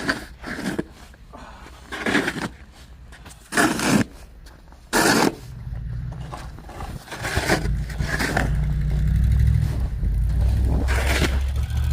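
Snow shovel scraping and pushing snow on pavement in four or five short strokes. From about halfway a vehicle engine rumbles steadily nearby, growing louder.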